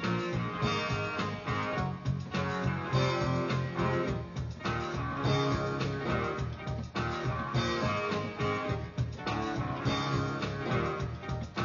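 Guitar music with a steady rhythm, no singing.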